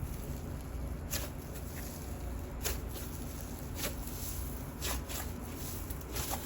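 Hands stretching and pressing a paper-clay wood-glue slime, giving soft sizzling crackles with a sharp little pop about every second.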